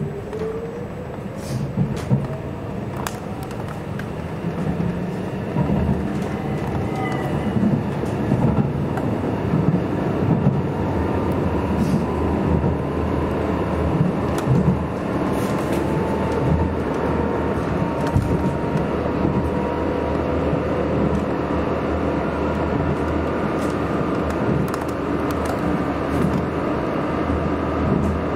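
A vehicle running steadily with a low rumble and scattered clicks. A faint whine rises in pitch at the start, and the sound grows louder over the first few seconds.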